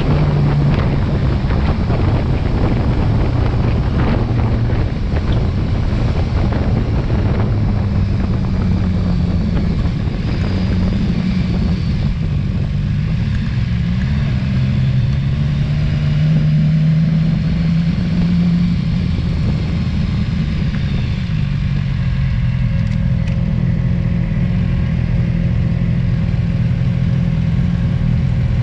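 Motorcycle engine running while riding, with wind noise over the microphone. The engine note wavers up and down with the throttle, and the wind noise eases after the first third as the bike slows to town speed.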